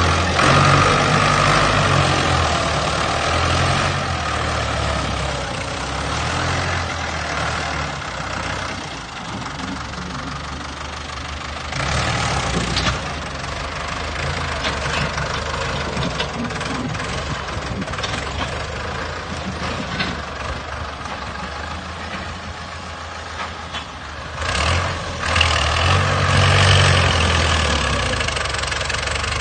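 Heavy earth-moving machine's engine running steadily, louder near the start and again near the end, with a few sharp knocks along the way.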